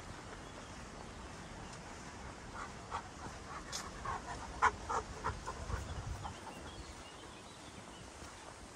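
Footsteps on a dirt forest path over a steady low rustle, with a run of light clicks and taps from a couple of seconds in to past the middle.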